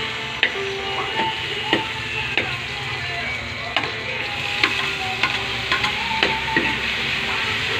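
Diced onions sizzling as they fry in hot oil in a wok, with a stirring utensil clicking against the pan about once or twice a second.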